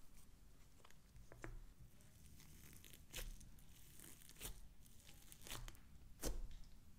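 Homemade slime studded with foam beads being stretched, poked and pressed by hand: faint sticky crackling with a few sharp pops scattered through, the loudest a little after six seconds in.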